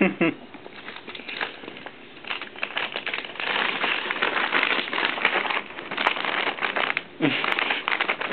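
Plastic treat bag crinkling in irregular bursts as a Pomeranian noses and pushes into it, busiest through the second half. A short, low, falling vocal sound comes near the end.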